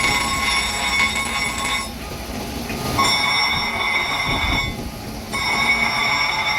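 Power grinder on steel, squealing with a high whine while it cuts, in three passes with short lighter pauses between, as rust is ground off an old hammer.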